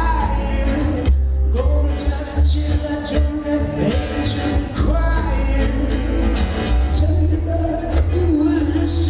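Live acoustic band music: a strummed acoustic guitar, a plucked upright bass and a bowed fiddle, with a man singing.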